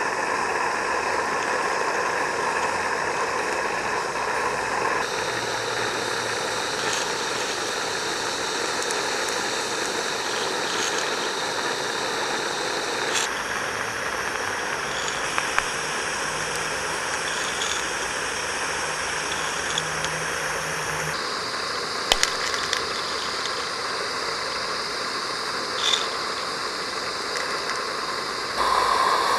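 Steady hiss of a gas-fired Roundhouse Linda-class 16 mm live-steam locomotive standing in steam, its burner and steam blowing. The tone of the hiss shifts abruptly a few times, with a few faint clicks.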